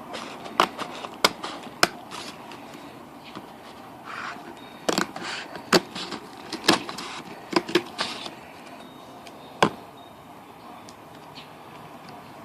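A small cardboard candy box being cut open by hand: a series of irregular sharp clicks and snips through the cardboard, with a brief rustle about four seconds in.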